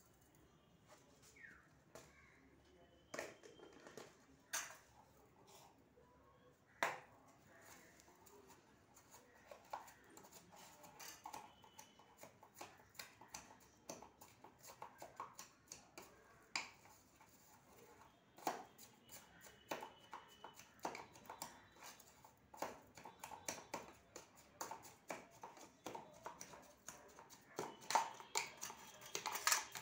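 A spoon knocking and scraping inside a stainless steel tumbler as wood apple pulp is mixed and mashed. A few scattered clinks at first, then quicker, busier tapping through the second half.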